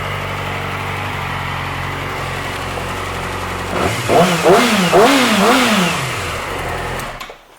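2007 Yamaha YZF-R6's inline-four engine idling steadily, then revved three times in quick succession about four seconds in, dropping back to idle before the sound cuts off near the end.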